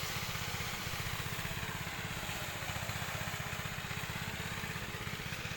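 Small engine of a rice threshing machine running steadily, with a fast, even throb and no change in speed.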